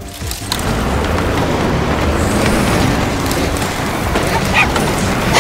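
Cartoon sound effect of a bulldozer on crawler tracks: a steady, heavy rumble.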